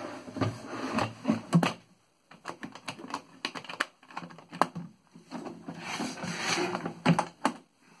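Knocks, clicks and scraping from a wooden typewriter carrying case and its metal latch being handled and closed over a 1950 Olympia SM-1 portable typewriter. There are two spells of rubbing, at the start and again about six seconds in, with a run of sharp clicks between them.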